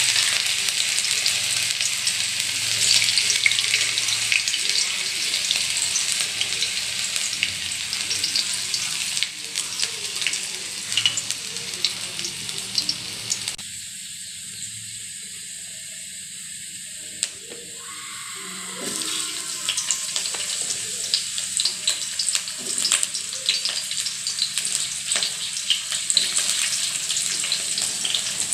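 Hot oil sizzling and crackling in a steel wok as chopped pieces fry. The sizzle drops to a quieter hiss about halfway through, then picks up again with more crackling.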